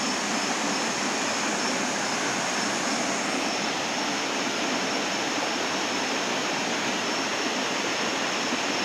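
Waterfall rushing: a steady, even roar of falling water, with a thin high steady tone over it.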